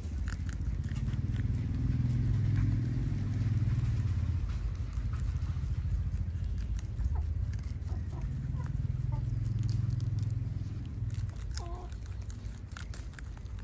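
Rabbits chewing fresh leafy greens, faint crisp clicks of munching, over a louder low rumble that swells twice and fades.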